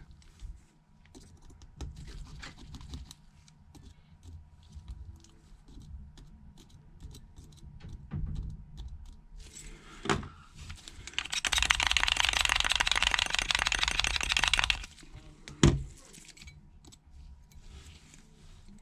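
Small clicks and taps of a precision Phillips screwdriver and tiny screws being worked out of the iPhone 8's front camera and earpiece bracket. In the middle comes a dense run of rapid clicking lasting about three seconds, with a sharp single click just before it and another just after.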